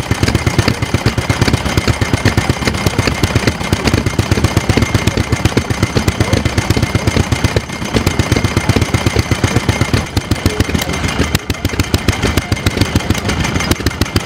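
Small hopper-cooled stationary engine running steadily, its exhaust beating in a fast, even rhythm as it drives a flat belt.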